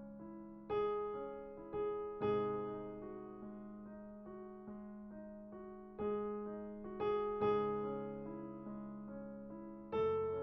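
Background piano music: gentle, slow chords with single notes between them, each struck note ringing and fading.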